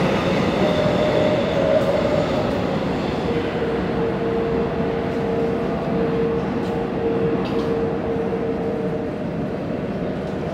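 Subway train pulling out of an underground station and running off into the tunnel, its rumble slowly fading. A whine rises in pitch over the first two seconds, and a steady high whine runs through the middle.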